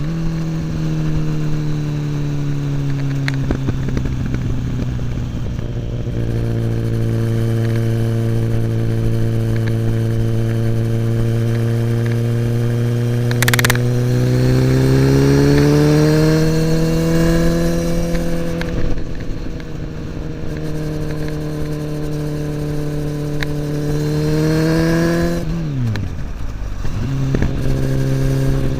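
Kawasaki ZX-10R inline-four through an Akrapovic slip-on exhaust, heard while riding. The engine holds a steady note, rises in pitch under acceleration about halfway through, and falls sharply near the end as it slows. There is one sharp click about halfway in.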